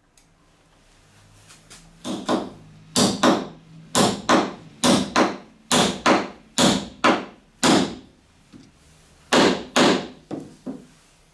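A hammer striking the top of a steel rod, driving it into the centre hole of a thick laminated plywood wheel: about fifteen sharp blows, mostly in quick pairs, with a short pause about eight seconds in and a few lighter taps near the end.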